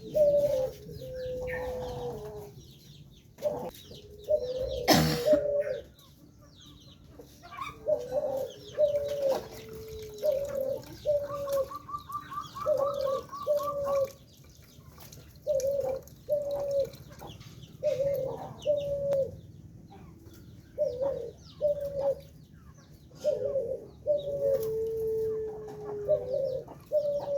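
Birds calling over and over, mostly in short pairs of notes with a few longer falling calls, and a quick trilled run about twelve seconds in. One sharp knock about five seconds in.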